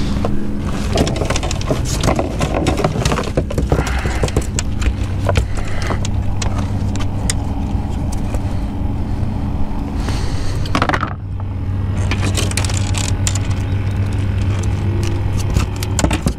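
Irregular knocks and clatter of a small sheepshead flopping and being handled on a fiberglass boat deck, with a plastic measuring board and rod knocking against it, over a steady low hum.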